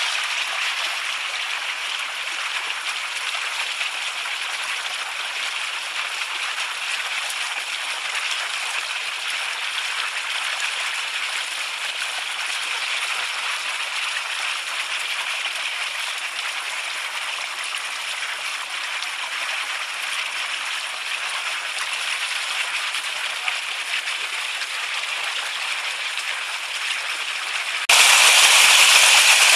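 Shallow mountain stream running over stones, a steady rushing babble. About 28 s in it gets suddenly louder, with the fast water much closer.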